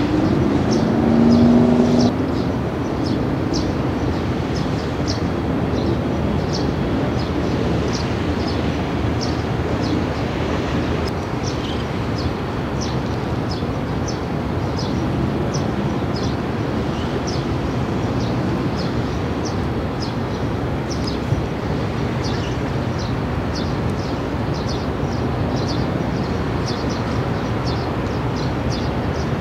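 Steady outdoor background noise of distant vehicle traffic, with high short ticks repeating about twice a second. A brief low tone sounds in the first two seconds and is the loudest moment.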